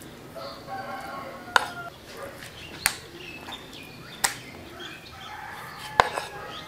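Chef's knife knocking against a bamboo cutting board while raw chicken breast is trimmed: four sharp knocks, roughly a second and a half apart, the last the loudest. Faint pitched calls sound in the background between them.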